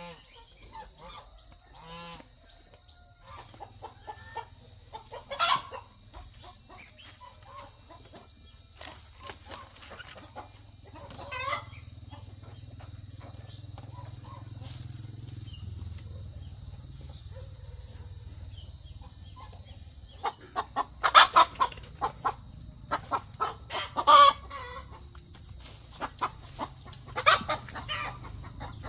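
Chickens clucking and calling, with a run of loud, quick calls about twenty seconds in, over a steady high-pitched whine.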